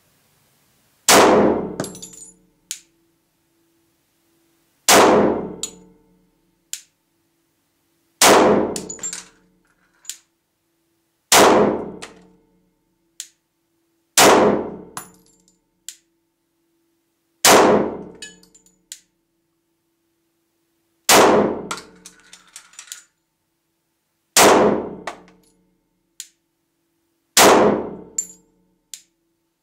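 Glock 24C .40 S&W pistol with a compensator fired in slow single shots, nine shots about three to four seconds apart, each echoing in a brick-vaulted cellar. A short light clink follows about a second and a half after each shot.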